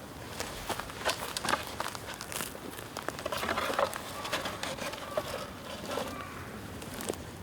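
Bonfire of dry bamboo crackling, with irregular sharp pops and snaps.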